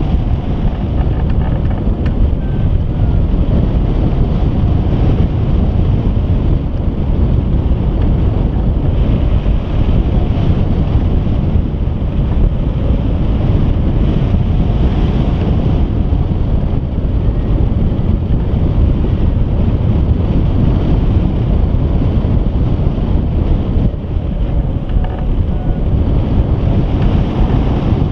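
Steady, loud wind rushing over the microphone of a camera mounted on a hang glider in flight, heaviest in the low rumble.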